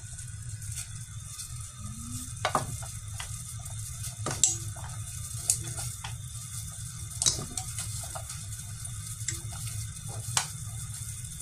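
Water boiling steadily in a stainless-steel stockpot with meat blanching in it, with a few sharp knocks of long wooden chopsticks against the pot and the meat as it is stirred.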